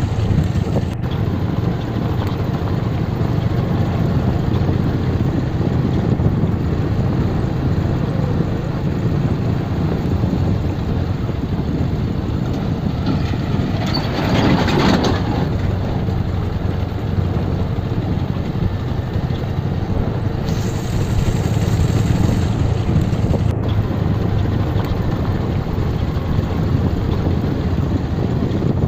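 Motorcycle engine running at a steady riding speed, with road and wind noise. A brief louder rush of noise comes about halfway through.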